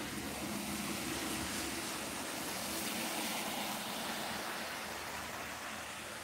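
Traffic on a waterlogged road: a steady hiss of tyres running through standing water, with a faint engine hum in the first two seconds and a slight swell around the middle.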